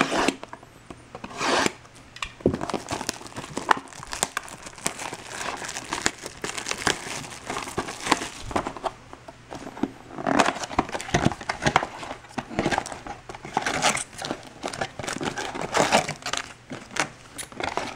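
Plastic shrink wrap crinkling and tearing as a sealed trading-card box is opened, with foil card packs rustling and crackling as they are pulled out of the box. Irregular crackles follow one another without a break.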